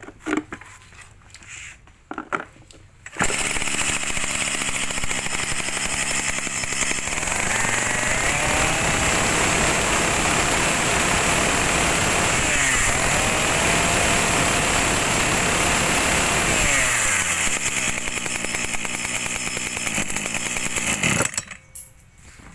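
Yanmar 23cc brush cutter engine catching about three seconds in, idling, revved up twice and let back down to idle, then switched off about a second before the end; it runs crisply.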